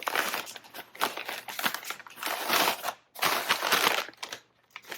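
A shopping bag and its wrapped contents crinkling and rustling in uneven bursts as they are rummaged through and handled, with brief pauses about three and four and a half seconds in.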